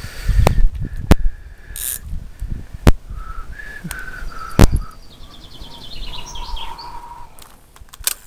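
Small songbirds chirping, with a quick trill followed by a short warbled call in the second half. Several sharp knocks and low handling bumps break in close to the microphone, the loudest about two-thirds of the way through.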